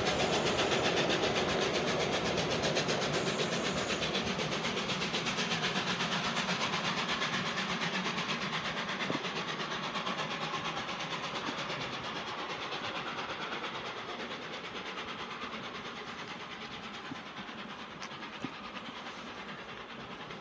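Steam-hauled train pulling away and fading steadily into the distance: the rapid, even exhaust beat of 60163 Tornado, a three-cylinder A1 Pacific steam locomotive, mixed with the clatter of the coaches' wheels on the rails.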